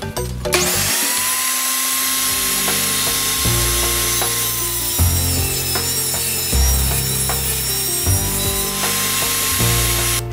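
Ryobi benchtop table saw starts about half a second in and cuts through a laminate floor plank, its motor whine sagging a little as the blade is under load. It stops just before the end. Background music with a bass line plays underneath.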